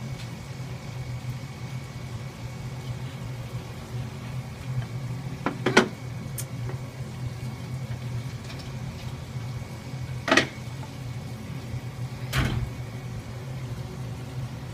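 A steady low hum, with three short knocks or clicks about six, ten and twelve seconds in.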